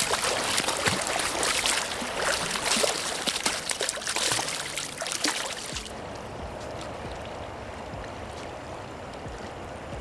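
A steelhead thrashing and splashing at the river's surface, a choppy run of splashes that stops abruptly about six seconds in. After that, the steady flow of the river.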